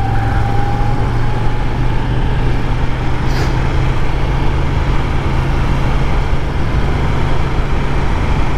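Moto Guzzi V7 850's air-cooled transverse V-twin running steadily at cruising speed, under a constant rush of wind and road noise.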